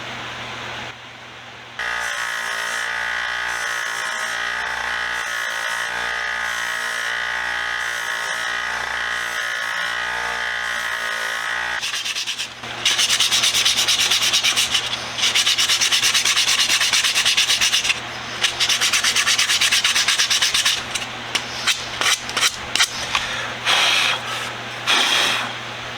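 A 1x30 belt sander runs with a steady hum. From about halfway through, the painted wooden screwdriver handle is pressed to the belt in repeated passes, each a louder, harsh sanding noise that starts and stops as the paint is ground off the wood.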